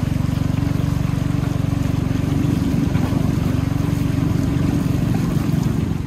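Peke-peke long-tail boat motor on a wooden canoe running steadily with a fast, low, even putter; it cuts off near the end.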